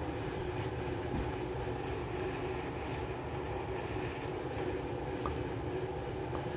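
A steady mechanical hum with a low rumble, unchanging throughout.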